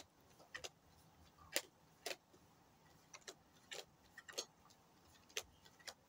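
A deck of tarot cards being shuffled by hand: a string of short, soft card flicks at irregular spacing, about one or two a second.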